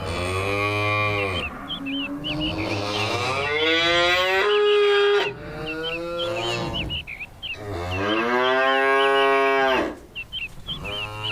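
Cow mooing: three long, drawn-out calls that rise and fall in pitch, with small birds chirping steadily behind them.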